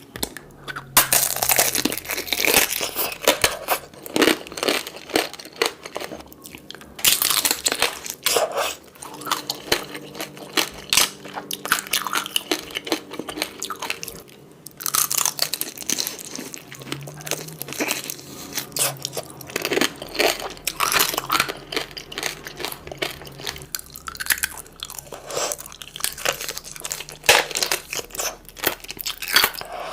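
Close-up crunching bites and chewing of fresh fruit, a dense crackle of crunches in runs of several seconds with brief pauses between them.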